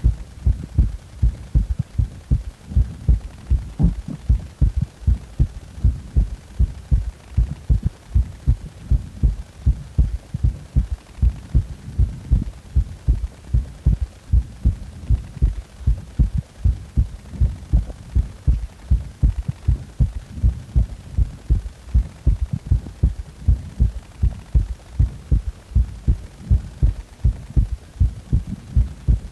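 Heartbeat: steady, regular low-pitched thumps, each beat made of three sounds in place of the usual two.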